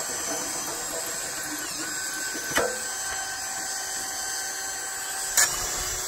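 Cordless drill running steadily, driving a drill-powered log turner on a sawmill bed. Its pitch drops slightly about two seconds in, and two sharp clicks come about halfway through and near the end.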